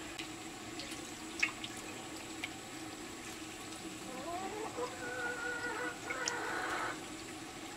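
Spoon scooping thin curry from a large aluminium pot into a ceramic bowl, the liquid splashing and dripping back, with a few light clinks of the spoon against the pot and bowl. A faint pitched sound runs in the background from about four to six seconds in.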